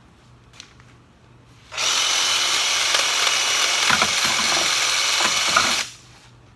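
Reciprocating saw running for about four seconds, then stopping abruptly, with a few low knocks partway through. Its new, thick blade is vibrating badly and striking the guard.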